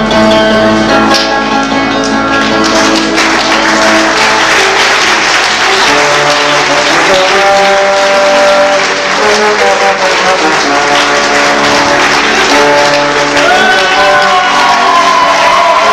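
Live music playing while an audience applauds over it.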